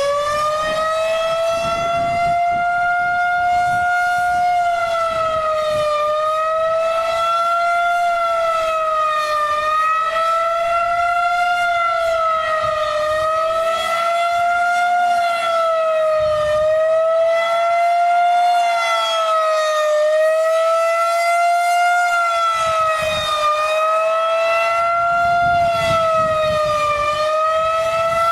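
Federal Signal 2001-130 electromechanical outdoor warning siren sounding a fast wail. Its loud, steady tone swings gently up and down in pitch every three to four seconds.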